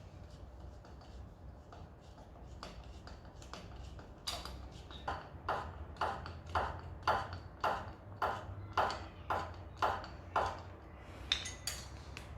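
Phillips screwdriver backing out the ignition coil's mounting screws on a 125cc motorcycle, giving a regular series of short metallic clicks about twice a second. The clicks start about four seconds in and stop a couple of seconds before the end.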